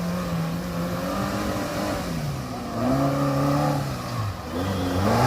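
Off-road 4x4 engine revving in repeated throttle bursts as it works through an obstacle. The pitch holds, drops off twice, and climbs again, with the strongest rev near the end.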